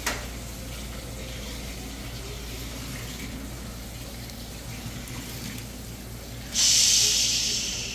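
Hot oil and onions from a ladle poured onto roasted tomatoes in a stainless-steel bowl, giving a sudden loud sizzle late on that fades away: the chunkay (hot-oil tempering) for tomato choka. Before it, a faint steady hiss.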